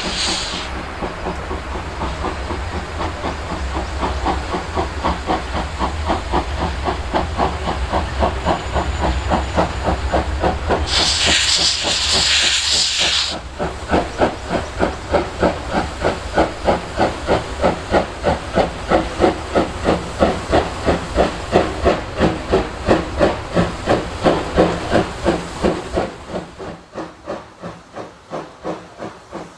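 Steam tank locomotive C11 207 working towards the listener, its exhaust beating a steady chuff of about three beats a second that grows louder as it approaches. About eleven seconds in, a loud burst of steam hiss lasts about two seconds. The beats turn fainter near the end.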